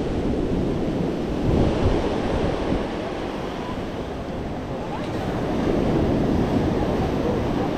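Sea waves washing onto a beach, mixed with wind buffeting the microphone; the surf swells about two seconds in and again near the end.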